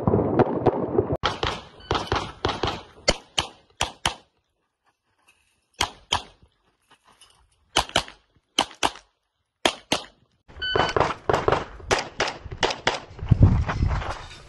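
Semi-automatic pistol fire: a fast string of shots, a short break, then evenly spaced pairs (double taps), then another rapid string of shots near the end.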